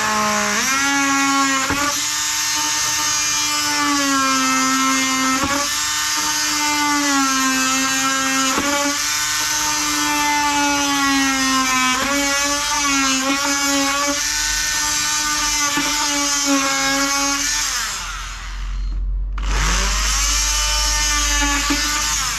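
Oscillating multi-tool with a brand-new blade cutting through a wooden boat's hull plank, a steady buzzing whine whose pitch wavers as the blade bites. It stops about 18 seconds in and starts again about a second and a half later.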